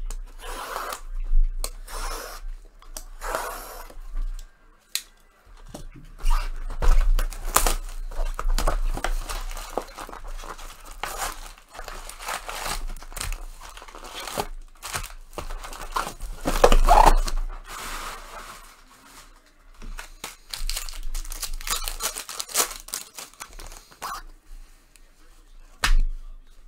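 Baseball trading-card packs being ripped open and their wrappers crumpled, in irregular bursts of tearing and crinkling. The loudest rips come about seven and seventeen seconds in.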